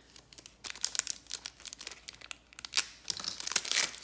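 Foil wrapper of a trading-card pack crinkling in irregular bursts as gloved hands handle it.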